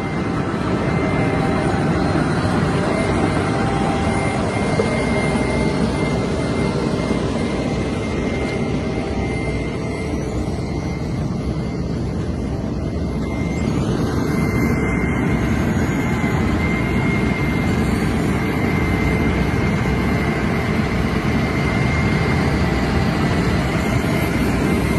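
Asphalt milling machine running steadily: a dense, loud mechanical rumble with a thin, steady high whine over it.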